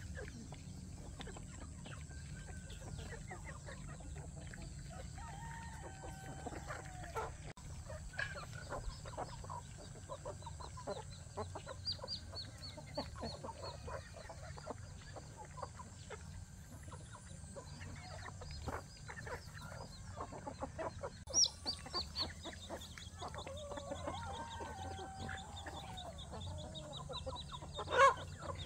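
Chickens clucking, with a rooster crowing, over a steady low background hum.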